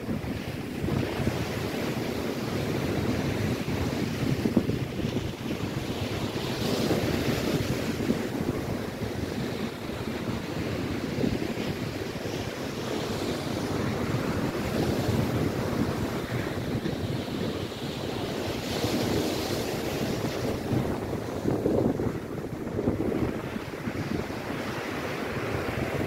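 Lake Erie waves breaking and washing along the shore in a steady rush that swells and eases, with wind buffeting the microphone.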